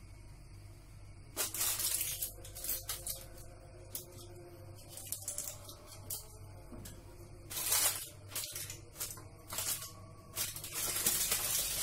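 Aluminium foil crinkling and rustling in irregular bursts as hands press it around a pot's rim and settle a glass lid on top of it.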